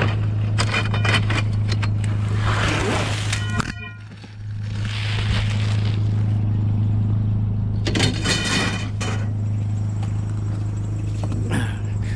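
Scrap metal being handled and dragged: several bouts of clanking, rattling and scraping, with a metallic ring in the clatter, over a steady low hum.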